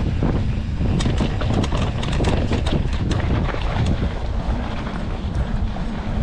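Wind buffeting a GoPro's microphone during a mountain bike ride on a dirt trail, a steady low rumble, with many quick rattles and knocks from the Canyon mountain bike jolting over the rough ground.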